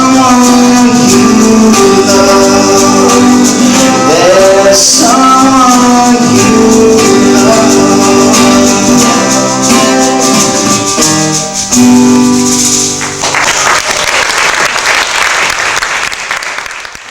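Live band closing the song with guitar and long held sung notes, which stop about thirteen seconds in. Audience applause follows and then fades out.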